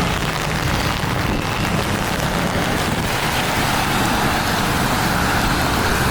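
Steady rain falling, with a low hum of traffic beneath it.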